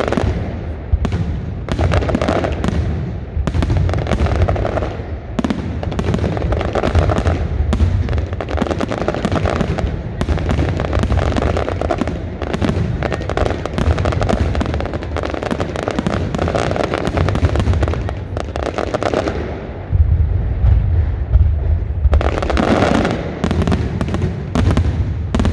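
Fireworks display: a dense, continuous barrage of bangs and crackles, with heavier low booms for a couple of seconds about twenty seconds in.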